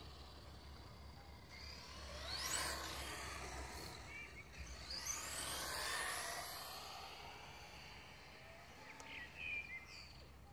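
Brushless electric motor of a Thunder Tiger Tomahawk VX RC car whining as the car speeds past twice, the pitch sweeping up and then down with each pass. A few short high chirps near the end.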